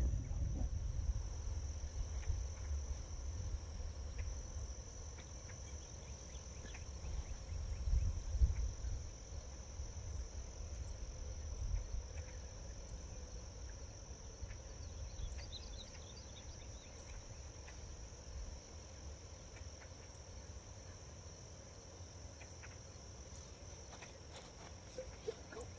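Steady high-pitched insect drone over a low, uneven rumble that swells briefly a couple of times, with a few faint ticks.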